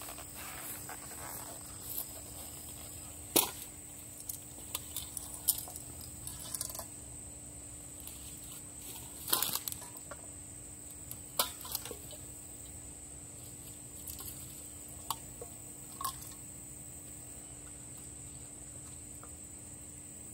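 Drink cans being set down one at a time on a small table, a series of scattered light knocks and clinks that stop a few seconds before the end, over a steady high-pitched insect chorus.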